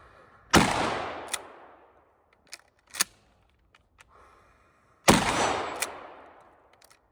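Two 12-gauge Mossberg 500 pump-action shotgun shots about four and a half seconds apart, each trailing off over about a second and a half. Between them come a pair of sharp clacks as the pump is worked to chamber the next shell.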